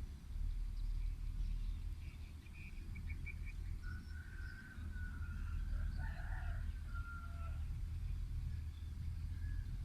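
A few short bird chirps, then one long drawn-out bird call lasting about three seconds, over a steady low rumble.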